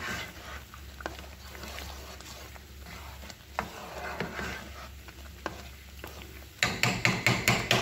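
A silicone spoon stirring a thick, bubbling étouffée in a stainless steel pot: soft bubbling and scraping with occasional light clicks, then a quick run of loud knocks near the end.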